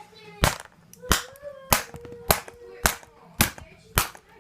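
A tablet being struck hard again and again: seven sharp cracking blows at an even pace, a little over one and a half a second, as it is beaten in a mock attempt to fix it.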